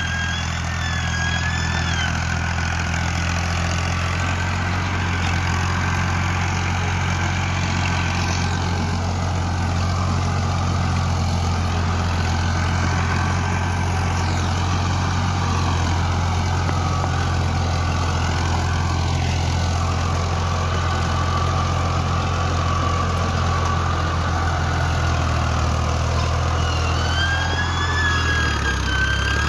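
Farm tractor's diesel engine running steadily under load while it pulls a rotary tiller through the soil.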